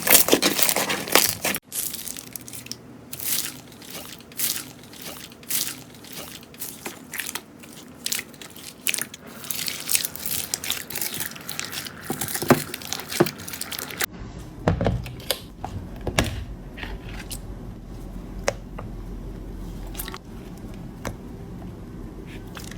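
Slime being pressed and worked by hand: a run of crunchy crackling pops and clicks, thinning to sparser, quieter clicks over a low hum after about fourteen seconds.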